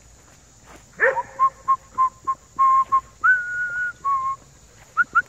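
A person whistling to call dogs in: a string of short notes at one pitch, then a longer, higher held note, then a quick run of short rising chirps, about six a second, near the end.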